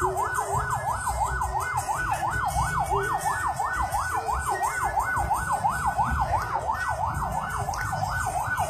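Emergency-vehicle siren on a fast yelp, its pitch sweeping up and down about three and a half times a second without a break, over a low rumble.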